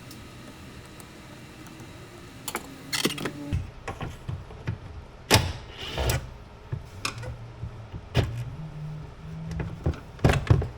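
A run of sharp knocks and clatters as objects are handled and set down, with short low whirring hums in between.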